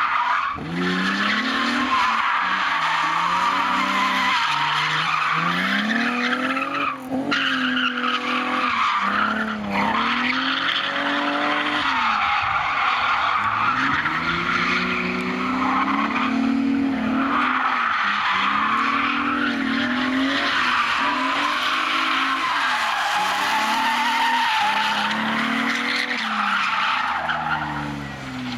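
Vauxhall Omega drifting: its engine revs up and down again and again while the rear tyres squeal and skid across the tarmac.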